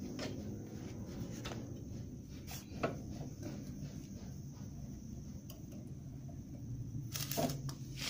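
Bench drill press motor running with a low steady hum, while the workpiece on its table is handled with a few sharp knocks: the loudest about three seconds in, and a short clatter of knocks near the end.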